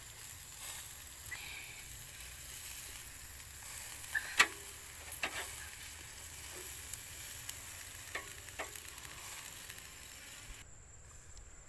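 Whole spatchcocked chicken grilling over charcoal: a steady sizzle with several sharp pops and crackles, cutting off suddenly near the end.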